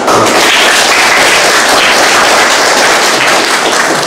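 Group applause: many people clapping, starting suddenly and keeping up steadily, thinning slightly near the end.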